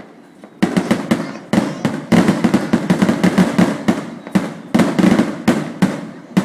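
Aerial fireworks bursting in quick succession: a barrage of sharp bangs with echoing tails, starting about half a second in and getting denser from about two seconds in.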